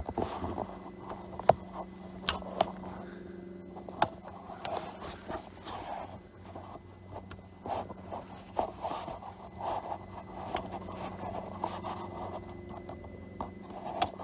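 Gloved hands scraping and fumbling as a plastic electrical connector is worked back onto its socket in a diesel engine bay, with a few sharp clicks along the way. A steady low hum runs underneath.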